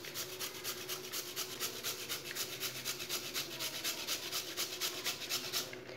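Raw peeled potato being grated on a flat stainless-steel hand grater: a steady rasping of quick strokes, about five a second, stopping near the end.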